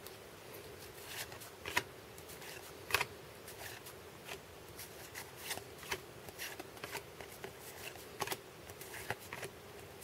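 A stack of 1992 Upper Deck baseball cards being flipped through by hand: a string of faint, separate flicks and slides of card stock as each card is moved across the stack.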